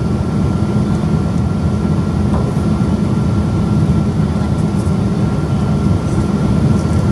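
Cabin noise inside a Boeing 777-200 on its landing approach: the steady roar of the engines and airflow, with a thin steady whine held above it.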